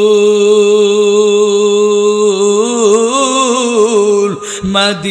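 A man singing a devotional song about Medina in a chanting style, holding one long steady note. About two seconds in, the note breaks into a wavering, ornamented run; a quick breath near the end, then the next line begins.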